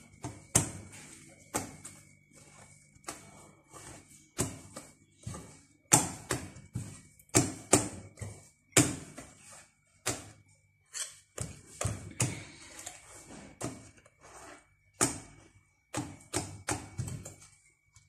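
Wire whisk beating thick chocolate cake batter in a glass bowl, knocking and scraping against the glass in irregular strokes.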